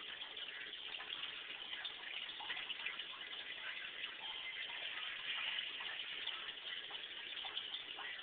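Water running and splashing in a fish tank, a steady hiss with faint crackling.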